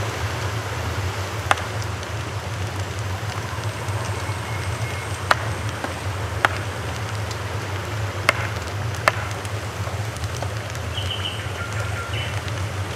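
Steel cleaver knocking on a wooden chopping board as it cuts the fins off a fish: about six sharp, irregular chops over a steady background hiss.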